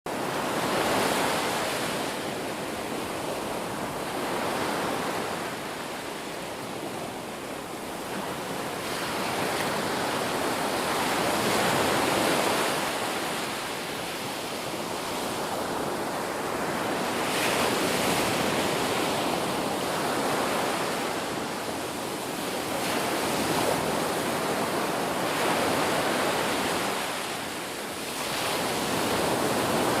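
Ocean waves breaking on a shore, a steady wash of surf that swells and ebbs every few seconds as each wave comes in.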